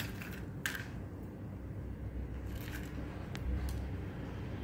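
A few faint rustles and light clicks as dry toasted bread croutons are picked by hand from a small bowl and dropped onto bowls of soup, over a steady low hum.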